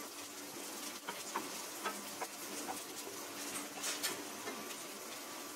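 Sliced garlic sizzling in shallow hot oil in a nonstick pan: a steady hiss with scattered small pops and clicks.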